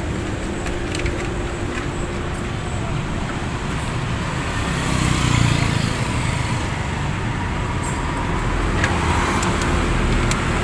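Road traffic passing close by: a steady hum of cars and engines that swells around five seconds in as a vehicle goes past, with a few light clicks scattered through it.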